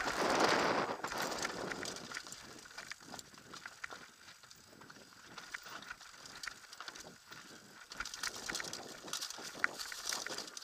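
Helmet-mounted camera on a downhill mountain bike: a rush of wind over the microphone for the first couple of seconds, then the bike's irregular clicking and rattling as it runs over the rocky trail.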